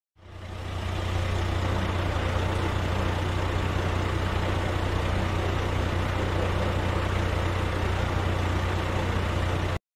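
A heavy truck engine idling steadily. It fades in over about the first second and cuts off suddenly near the end.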